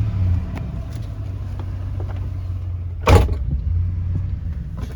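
GMC Sierra pickup running at idle through its original stock exhaust, a steady low rumble; the 22-year-old original muffler has a few holes in it. A single loud, sharp knock about three seconds in.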